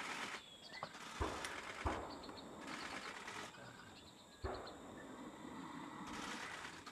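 Small birds chirping in short high runs, over rustling noise and a few soft thumps.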